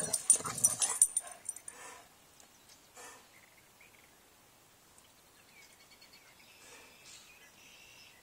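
Dog barking several times in quick succession at the start, then a couple of softer barks over the next two seconds, after which it falls quiet.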